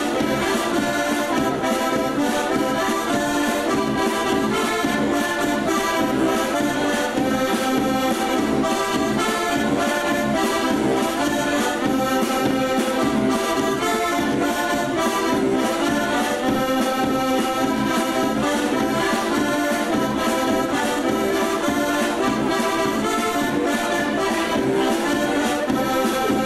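Three diatonic button accordions (heligónky) playing a Slovak folk tune together over a drum kit's steady beat, with no singing.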